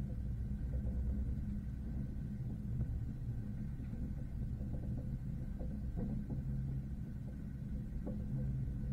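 Steady low rumble of a moving train heard from inside the carriage, with faint light knocks now and then.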